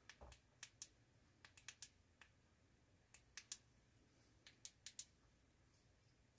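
Faint, scattered small sharp clicks in little clusters from an Olight i5R EOS flashlight being turned over and worked in the hands.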